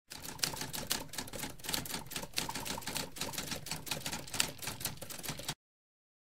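Typewriter keys clattering in a rapid, uneven run of clicks for about five and a half seconds, then cutting off suddenly.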